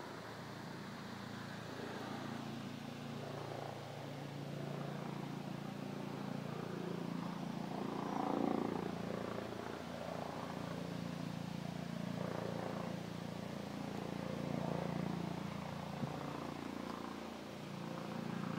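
A steady low engine drone, swelling louder about eight seconds in.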